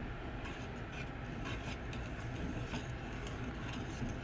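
A utensil stirring a thick coconut milk pudding mixture in an aluminium saucepan, with irregular light scrapes and ticks against the pan, over a steady low hum. The mixture has cooked down to setting point.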